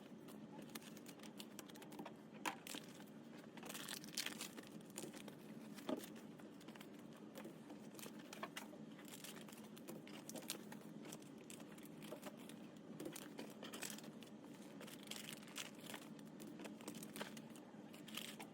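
Faint, irregular rustling and small clicks, like something being handled close by, over a low steady room hum.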